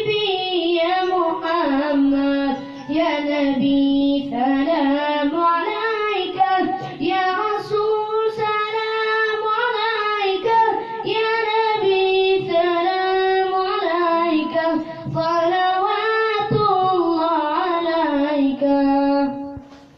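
A young boy singing an Arabic naat, a devotional song in praise of the Prophet, in long, bending held notes. The singing stops just before the end.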